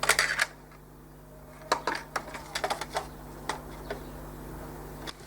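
Light plastic clicks and taps from a small handheld multimeter and its packaging being handled and set down: a quick cluster at the start, then scattered single clicks.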